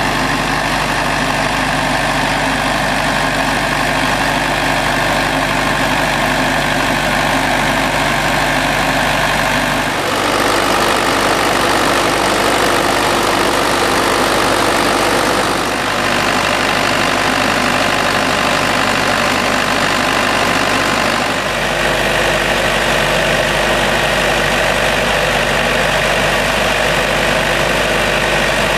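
Diesel engine of a pump unit running steadily at a constant speed, driving a water pump. The tone of the drone changes abruptly twice, at about ten and about twenty-one seconds in.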